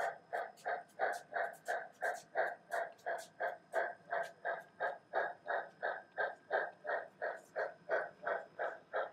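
Sound-equipped O scale Southern Pacific 4-8-0 model steam locomotive playing steady exhaust chuffs through its onboard speaker, about three chuffs a second.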